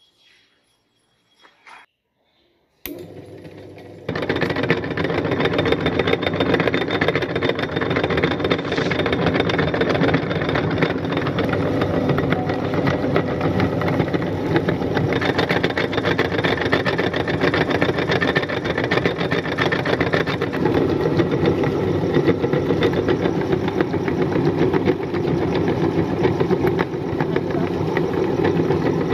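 Electric meat grinder switching on with a click about three seconds in, running quieter for a moment, then running loud and steady as it grinds Oreo cookies through its cutting plate.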